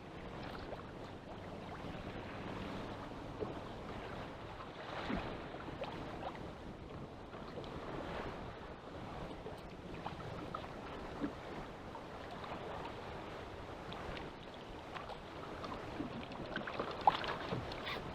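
Wind and choppy sea water lapping against a fishing kayak, with scattered small knocks and clicks and one sharper knock near the end.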